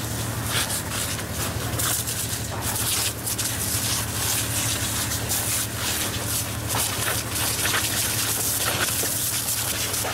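Fire hose spraying water onto a burning stump in brush, a steady hiss with a steady low hum underneath.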